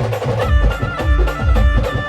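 Live band music: heavy bass drum beats with percussion, and a sustained melody line coming in about half a second in.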